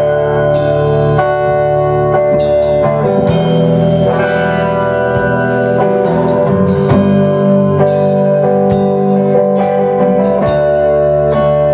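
A band playing live and instrumental: an electric guitar played through an amp, with other strings and a drum kit keeping a steady beat with cymbal hits.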